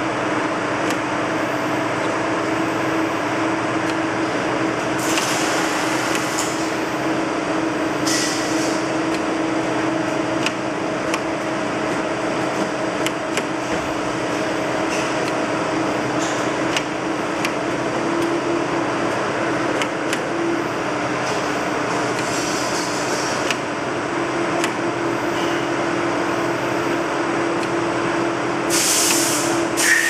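Winton RD5 CNC coax cable bender working through a rotary-wipe bending cycle on semi-rigid coax: a steady machine hum, with several short hisses of compressed air from its pneumatic cylinders and scattered light clicks as the carriage feeds and the tooling moves.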